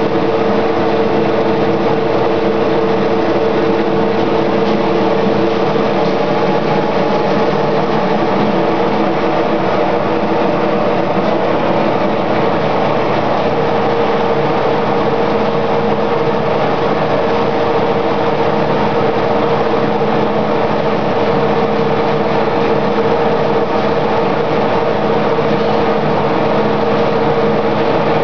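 Wektor BT-60 sawdust briquetting press running, pressing sawdust into a continuous briquette. A loud, steady machine hum with one strong constant tone.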